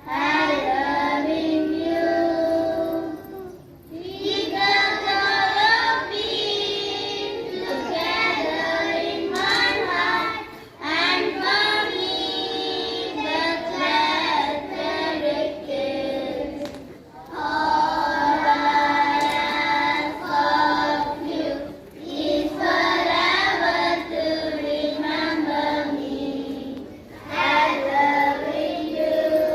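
Children singing a prayer song together, in phrases of a few seconds with short breaks between them.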